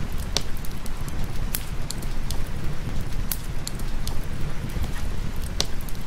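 Wood fire crackling in a fireplace, with about half a dozen sharp pops at irregular moments, over steady rain and a low, continuous rumble.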